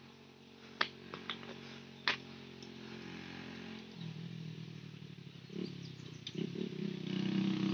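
An engine idling steadily, getting louder from about halfway through, with a few sharp clicks in the first two seconds.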